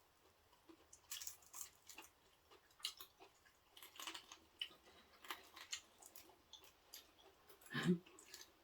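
A person chewing and crunching wood-fired roast chicken close to the microphone: irregular crisp crunches and mouth clicks. A short murmur of voice near the end.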